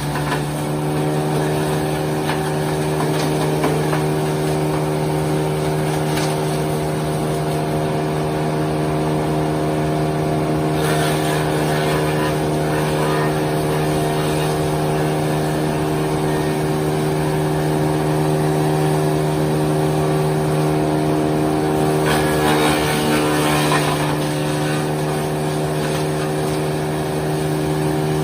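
Mobile wood chipper's engine running at a steady speed, with a short noisier stretch about eleven seconds in and another around twenty-two to twenty-four seconds in.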